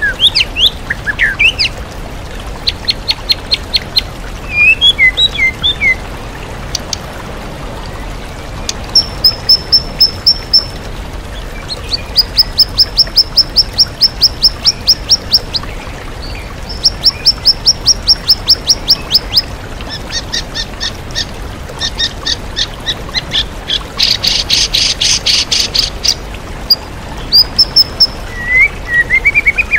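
White-rumped shama (murai batu) singing a varied song with mimicked phrases of other birds: runs of rapid repeated high notes and trills, with a loud harsh rattle about three-quarters through. A steady waterfall rush runs beneath.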